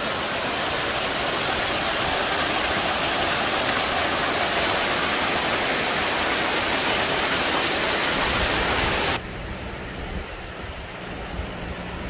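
Mountain stream rushing steadily over boulders in small cascades. About nine seconds in it cuts off abruptly to a much quieter outdoor hiss.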